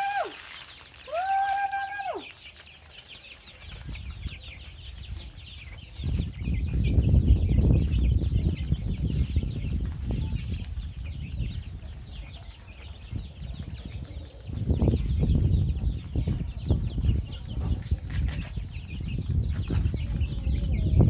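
A flock of young chickens peeping and clucking as they peck at feed, with many short high chirps throughout. About a second in there is one long held tone that rises, holds steady and falls away. From about six seconds in, a low rumble comes and goes under the chirps.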